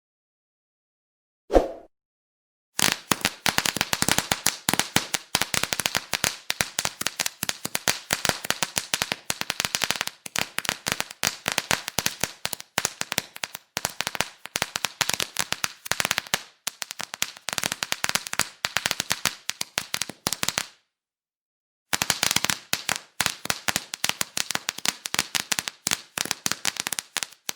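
Firecrackers: a single bang, then a long string of firecrackers going off in a rapid, irregular crackle of pops. The string stops about twenty seconds in, and a second string starts about a second later and runs on.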